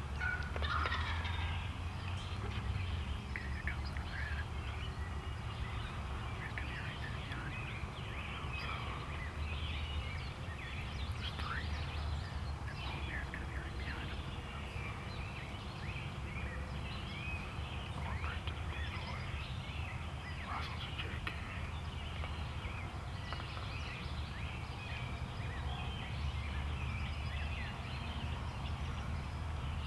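Wild turkeys calling: many short clucks and yelps scattered throughout, over a steady low rumble.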